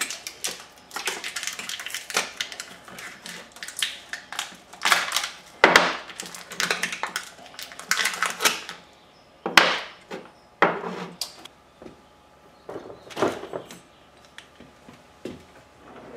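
New brake pads being worked out of their plastic blister packaging by hand: for the first eight seconds or so, a dense run of plastic crackling and scraping. After that come a few separate sharp knocks and clicks as the metal-backed pads and parts are handled on the bench.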